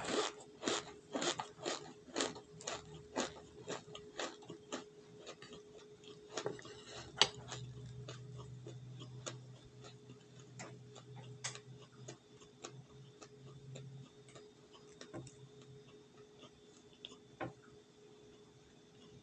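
Cornstarch being crunched: a run of crisp, sharp cracks about two a second that thin out and fade after about five seconds, followed by occasional single cracks.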